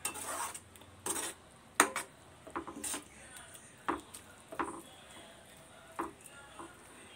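A metal spoon scraping and knocking against a stainless steel pan while it stirs grated carrot cooking in milk, in about eight uneven strokes.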